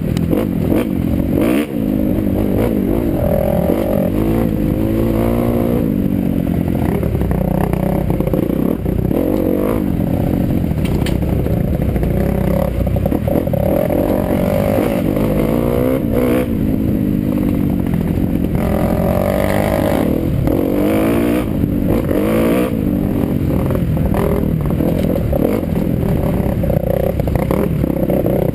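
Dirt bike engine heard close up from the rider's helmet, revving up and down over and over as it is ridden along a rough forest trail, its pitch rising and falling with the throttle. Occasional knocks and rattles come from the bike over bumps.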